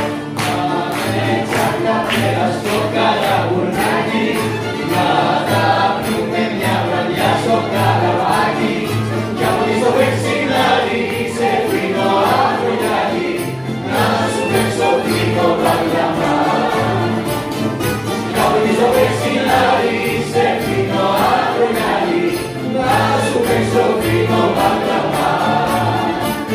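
Large rebetiko ensemble of bouzoukis, baglamas, guitars and violins playing live, with several voices singing together over a steady strummed rhythm.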